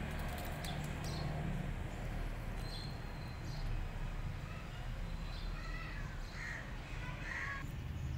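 Crows cawing several times, short harsh calls over a steady low rumble.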